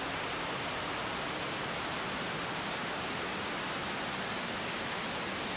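Steady, even hiss at a constant level, with no engine note in it.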